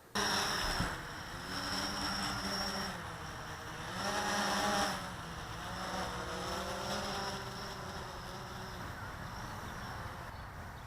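Blade 350 QX quadcopter's motors and propellers buzzing in flight, the pitch rising and falling as the throttle changes, loudest about four seconds in.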